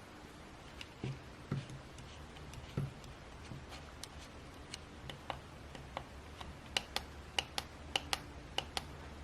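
Neeva Baby fetal doppler picking up faint scratchy clicks and a low steady hum as its probe is moved over the belly in search of the baby's heartbeat. The clicks come quicker and sharper in the second half.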